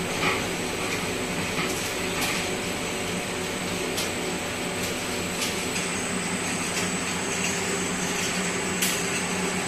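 Wire-making machinery running steadily: an even mechanical hum with a faint high whine and a few light ticks, as the pulley capstan draws twin-core aluminium wire through.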